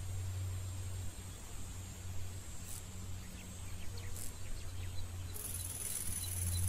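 Outdoor ambience: a steady low hum with insects buzzing high up. About five seconds in the insect noise grows louder and a regular chirp starts, about four a second.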